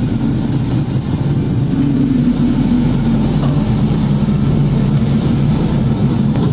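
Liquid-fuel rocket engine firing on a test stand: a steady, unbroken roar, heaviest in the low range.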